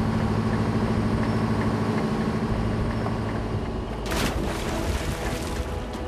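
A fishing boat's engine runs with a steady hum that eases off after about three and a half seconds. About four seconds in comes one sharp splash as the water's surface is struck to drive the fish into the net.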